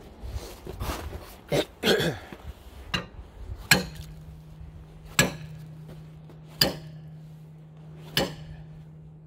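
Sharp metal-on-metal blows on a gib key puller, driving a stuck gib key out of the flywheel hub on a 1919 IHC Type M engine's crankshaft. A few lighter knocks and scrapes come first, then four hard ringing strikes about every second and a half, with a low hum lingering after the first hard blow.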